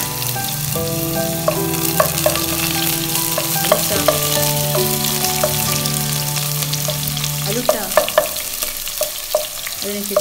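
Sliced onions sizzling as they fry in hot oil in a non-stick pot, stirred with a wooden spatula that clicks and scrapes against the pot now and then.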